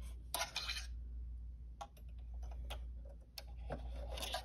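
Scattered light clicks and taps from hands working the Singer Simple 3337 sewing machine at its presser foot and needle plate, drawing the bobbin thread up. There is a small cluster of clicks in the first second and more near the end, over a faint steady low hum.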